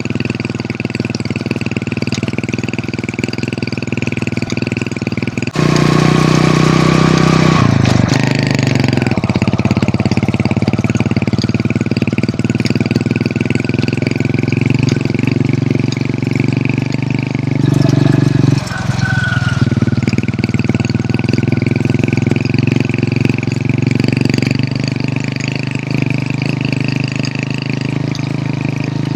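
Hero Honda CD100 motorcycle's single-cylinder four-stroke engine running with a steady note. About five and a half seconds in, the note jumps louder and higher. It changes again around eight and eighteen seconds in.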